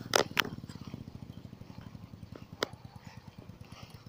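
Small engine of a 100cc mini chopper motorcycle running with a fast, even putter, slowly getting fainter as the bike rides off. Two sharp knocks come near the start and another one about two and a half seconds in.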